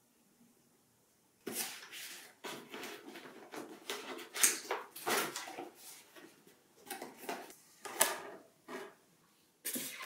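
Cardboard box being opened and its packaging handled: irregular rustling, scraping and light knocks of cardboard against cardboard, starting about a second and a half in, with a few sharper knocks.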